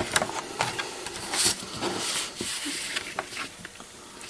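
Light rustling and a scatter of small clicks as craft supplies are handled and a laminated plastic sheet is picked up.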